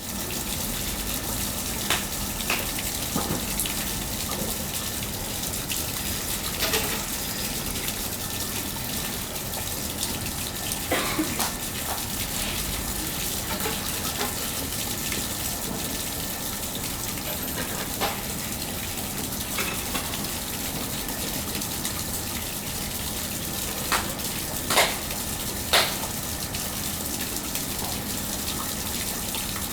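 Small shallow stream babbling steadily over stones, with scattered brief sharper splashes, three of them close together about five seconds before the end. A faint steady hum lies underneath.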